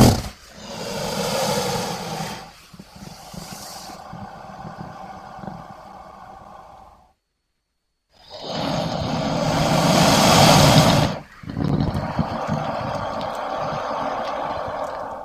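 Crocodile calls: several separate breathy, noisy calls, with a short silence about seven seconds in. The loudest call comes just after that silence.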